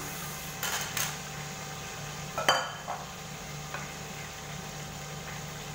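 Metal cookware clinking: a few light knocks, and one ringing clang of metal on metal about two and a half seconds in, over a steady low hum.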